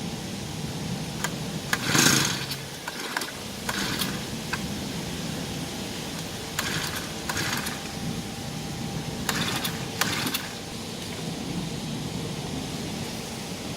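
A steady low mechanical hum, engine-like, with short bursts of noise breaking in several times.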